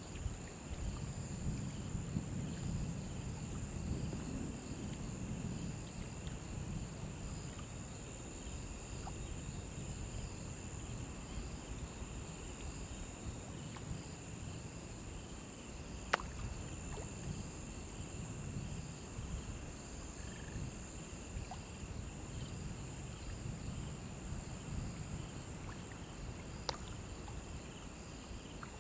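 Crickets chirping in a steady, unbroken high trill, with a faster pulsing chirp beneath it, over a low rumble. Two sharp clicks, one about halfway through and one near the end.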